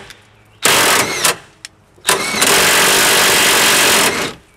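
Impact wrench run in two bursts, a short one about half a second in and a longer one of about two seconds, driving a rusted 15 mm fuel-tank bolt back in and out. The bolt is being worked loose after a soak in penetrating oil.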